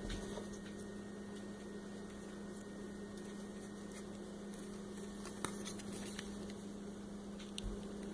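Steady low electrical hum, with a few faint clicks and taps of Play-Doh being pressed into plastic molds, a little past halfway and again near the end.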